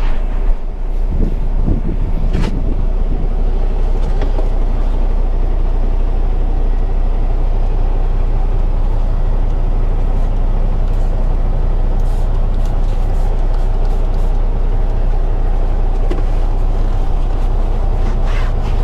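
Tanker truck's diesel engine idling steadily, with a few short knocks in the first seconds.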